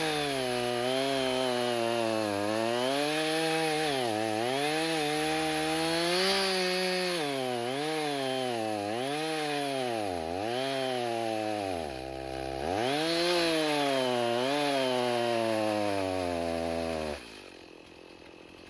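Two-stroke chainsaw cutting through a post oak log, its engine pitch sagging and recovering again and again as the chain bogs in the cut, dropping to a low idle briefly past the middle, then revving again before it stops shortly before the end. The chain is dull: it labours in the wood instead of cutting cleanly.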